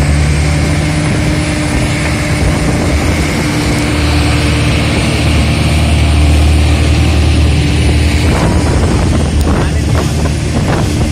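Speedboat engine running steadily at speed while towing a parasail, with wind buffeting the microphone and the rush of the wake.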